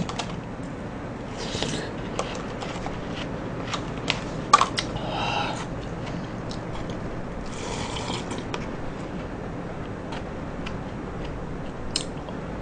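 Eating sounds: light clicks and scrapes of a wooden spoon in a plastic cup of melted shaved ice, with a few short slurps, over a steady background hiss.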